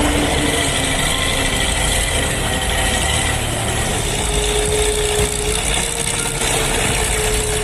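A heavy machine's engine running steadily, joined about halfway through by a steady whine.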